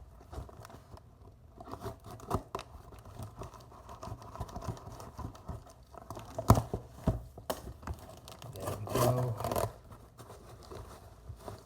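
Packaging being torn open and handled: tearing, rustling and scratching, with a couple of sharp snaps a little past the middle.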